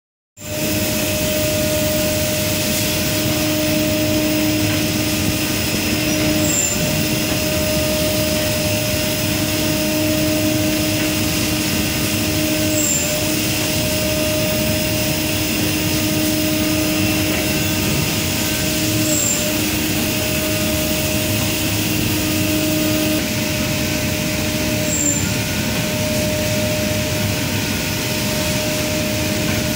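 Toilet paper production line running: steady machinery noise with two constant hums, and a brief high blip with a short dip in the hum repeating about every six seconds. Near the end the lower hum drops out.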